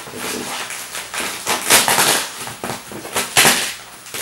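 Bubble wrap rustling and crinkling in a run of noisy swells as it is pulled at and cut away from a glass aquarium, with sharper crackles, the loudest about two and three and a half seconds in.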